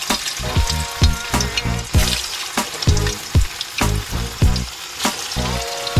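Banana blossom balls deep-frying in hot oil in a wok, a steady sizzle, under background music with a steady beat.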